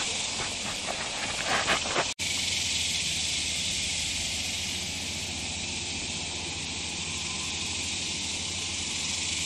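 Steady, high-pitched hiss of a summer insect chorus in the creekside trees, with light scraping and rustling in the first two seconds. The sound cuts out for an instant just after two seconds.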